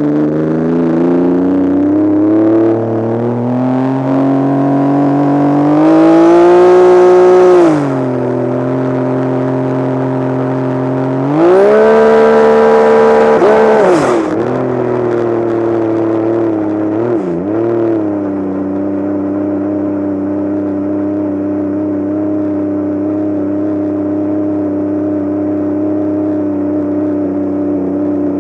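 A vehicle engine revving up slowly, holding high revs, dropping back, then revving up again. As the revs fall it hiccups: the engine speed dips and wobbles sharply twice before settling into a steady run.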